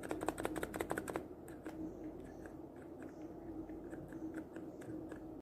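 Typing on a mechanical keyboard fitted with Cherry MX2A switches. A quick run of keystrokes comes first, then slower, lighter key presses.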